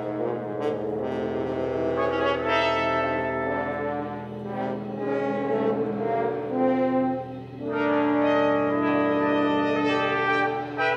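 Instrumental music led by brass, playing a run of held chords, with a short dip about two-thirds of the way through.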